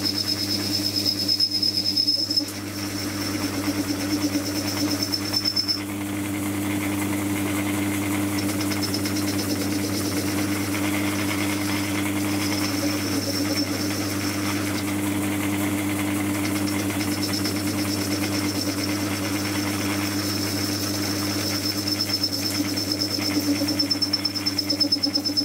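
Small metal lathe running with a steady motor hum while the cutting tool is fed into the casing of a car starter solenoid to cut it open. A high-pitched squeal from the cut comes and goes in stretches of a few seconds.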